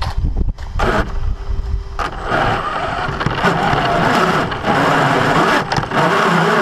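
Electric 1/10-scale RC 4x4 truck running on a 3S battery, its drivetrain giving a harsh grinding noise over a motor whine that rises and falls with the throttle, loudest from about two seconds in. The grinding comes only under forward acceleration, not in reverse or with the wheels off the ground, and persists after the gear mesh was set, pointing at a gear fault in the brand-new truck.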